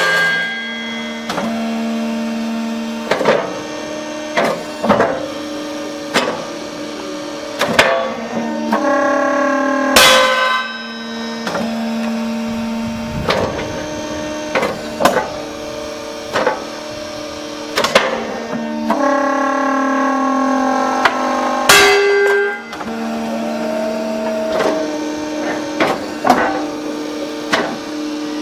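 Hydraulic rail-breaking press running with a steady hum, its strained tones building under load before a sharp crack as a rail snaps; this repeats three times, near the start, about ten seconds in and about twenty-two seconds in, with smaller clanks of steel in between.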